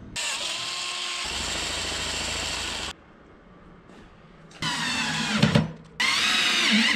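Cordless drill running in bursts: one long steady run, then after a pause two shorter runs with a rising whine, driving screws through aluminium drawer-slide rails into wood.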